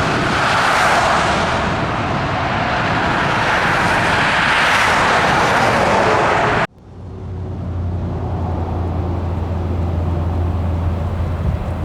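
Car noise: a loud, even rushing sound that cuts off abruptly about two-thirds of the way in. It is followed by a steady low engine hum with softer road or wind noise.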